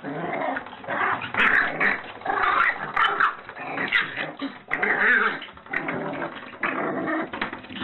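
A puppy growling and whining in repeated short bursts while it pushes its head and paws into the gap under a door, with a few sharp clicks among them.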